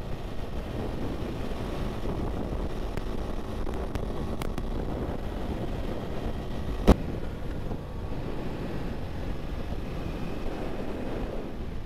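Husqvarna Svartpilen 401's single-cylinder engine running under way on a washboard gravel road, mixed with wind buffeting the microphone and tyre rumble. A single sharp click about seven seconds in is the loudest moment.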